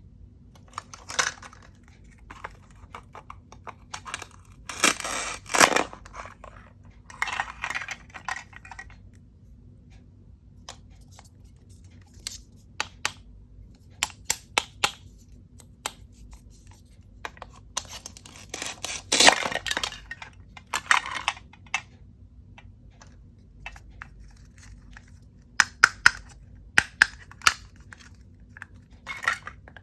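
Plastic toy fruits and vegetables being cut apart and handled: scattered sharp plastic clicks and clacks, with two longer tearing rips about five and nineteen seconds in.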